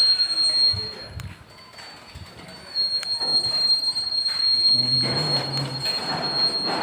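Slow-moving freight train of ballast-loaded hopper wagons rolling past, with a steady high-pitched whine over the rumble of the wagons and a few low knocks. The sound drops away about a second in and picks up again after about three seconds.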